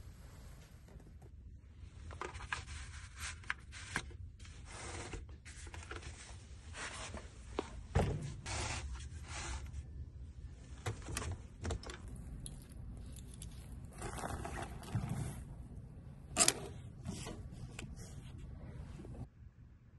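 Handling noises of things being moved about and packed at a desk: paper and packaging rustling, scraping and light knocks, with a sharp knock about eight seconds in and a louder click about sixteen seconds in.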